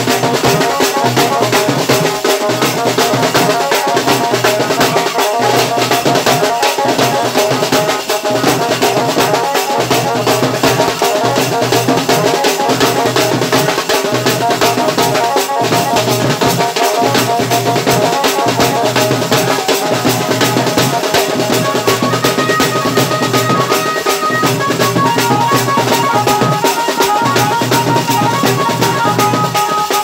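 Live dance band: shoulder-slung snare-type drums beating a fast, steady dance rhythm, with a melody line playing over the drums.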